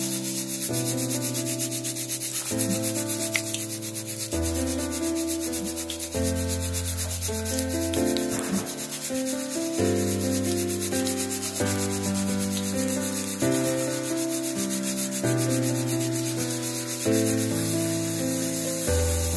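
Pakora batter deep-frying in hot oil, with a steady dense sizzle throughout, under background music of sustained chords that change every second or two.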